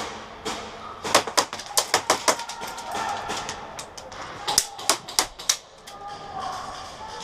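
Airsoft guns firing, sharp snapping shots in two quick volleys a couple of seconds apart.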